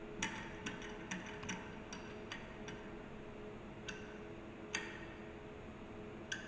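A series of light, sharp metallic clicks and taps from parts and tools being handled during the agitator assembly, over a steady low hum. There is a quick run of clicks at the start, then a few spaced ones, the loudest just before the five-second mark.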